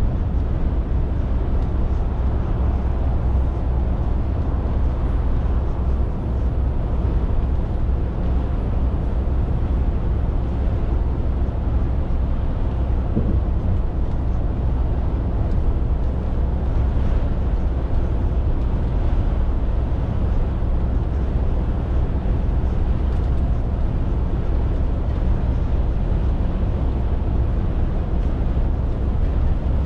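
Scania R450 lorry's 13-litre straight-six diesel and road noise while driving: a steady, even low drone with no changes in speed or gear.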